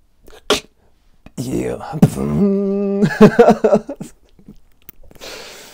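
Beatboxing mouth sounds: a sharp snare-like click, then voiced bass sounds with a held hum for about half a second, breaking into short choppy bursts of laughter, with a breathy exhale near the end.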